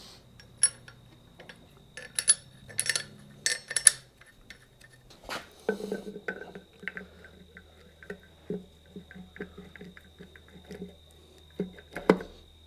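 Steel gear parts of a Hitachi EX120-2 swing reduction gearbox clinking and ringing as they are handled. Then comes a run of light irregular clicks as a gear plate is set onto the gearbox and worked into mesh, ending in a single solid knock near the end.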